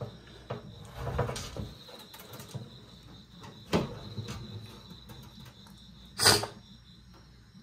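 Box turtles' shells and claws knocking and scraping on a stainless steel sink: a few separate knocks, the loudest about six seconds in, over a faint steady high-pitched tone.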